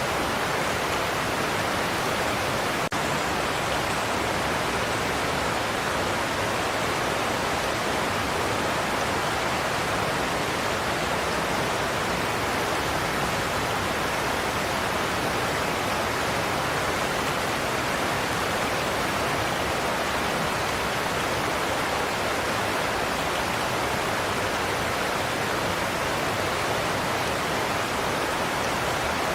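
Godafoss waterfall rushing over its cliffs: a steady, dense roar of falling water with no change in level, broken only by a split-second dip about three seconds in.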